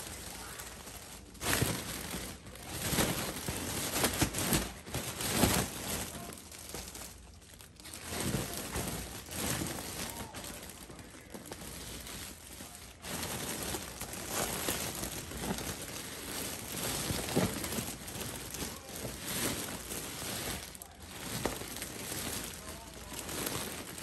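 Large foil balloon crinkling and rustling in irregular bursts as a baby grabs, hugs and pushes it.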